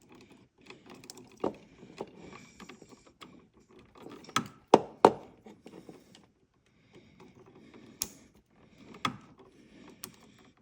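Hands working the wiring in an electrical box while the ground wire is connected: rustling with scattered sharp plastic clicks and knocks, the loudest pair about halfway through.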